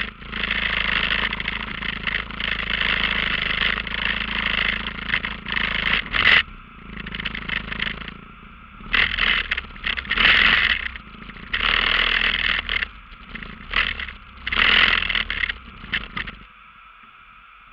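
ATV engine running steadily, then working in a series of short surges a second or two apart as the machine clears a fallen tree from the trail. The engine cuts off about a second before the end.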